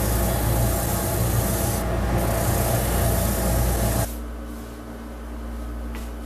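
Benchtop spindle sander running, its sanding drum grinding against the inside of an MDF ring to sand it flush: a loud rasping hiss over a steady motor hum. It cuts off abruptly about four seconds in, leaving only a quieter steady hum.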